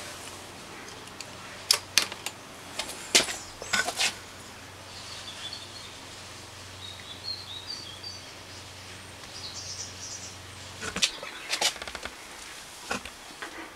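Sharp clicks and knocks in clusters, about two seconds in, around four seconds, and again near the end, over faint bird chirps and a low hum that cuts off about eleven seconds in.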